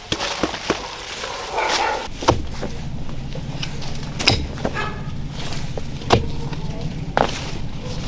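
Mattock blade chopping into soil and roots, single blows one to two seconds apart. A low steady hum runs underneath from about two seconds in.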